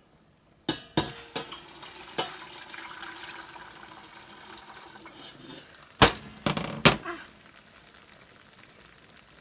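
Kitchen cookware clatter: a few sharp knocks, a few seconds of steady hiss like running or pouring liquid, then a quick cluster of loud knocks of pots and dishes about six seconds in.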